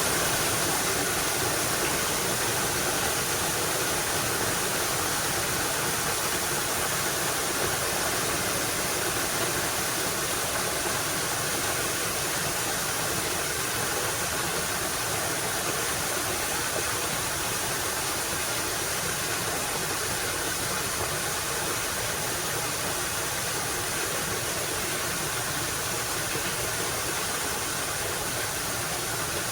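Mountain river flowing: a steady, even rush of water with no breaks or changes.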